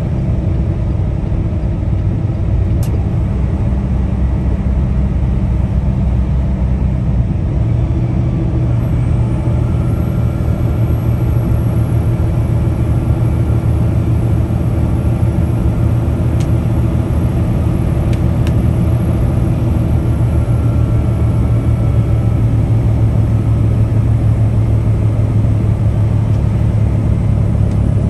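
Heavy truck's diesel engine and road noise running steadily at speed, a loud, even low drone with no change in pace.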